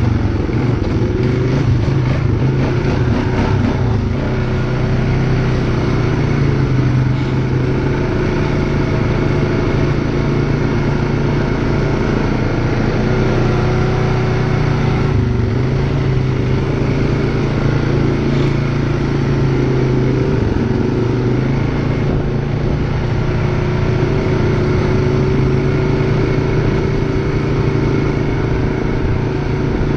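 An ATV engine running steadily at a slow riding pace. Its pitch wavers a little and dips briefly around the middle.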